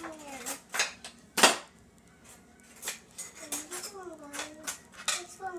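Dishes and silverware clinking as they are lifted out of a dishwasher and set down, with a few sharp clatters, the loudest about a second and a half in. A toddler's high voice babbles in between.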